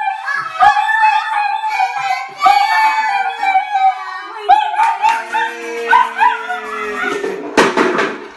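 A small dog howling along with family music-making: held harmonica notes, ukulele and singing. A short burst of noise comes near the end.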